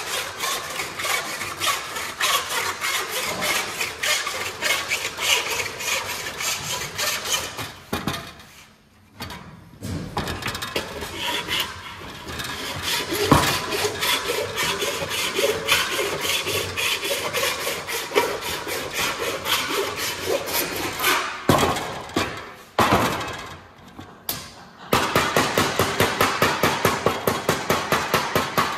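A hand tool rasping in quick repeated strokes along a curved sheet-metal panel, stopping twice. Near the end comes steady hammering on sheet metal, about three to four blows a second.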